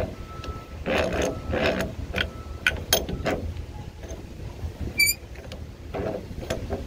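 Metal clicks and short rattles as an alternator is turned and worked by hand in a bench vise, with a brief high squeak about five seconds in.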